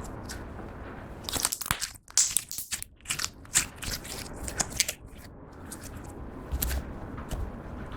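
Clear slime being squished and worked by hand, making irregular sticky crackles, clicks and small pops that cluster about one to five seconds in.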